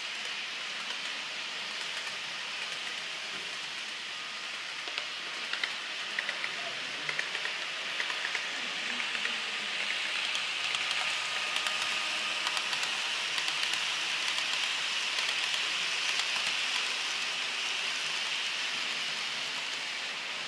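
Model trains, including a Frecciarossa model, running on a model railway layout: a steady whirring hiss of motors and wheels on the track, with scattered light clicks between about five and eight seconds in. It swells a little in the middle as a train passes close.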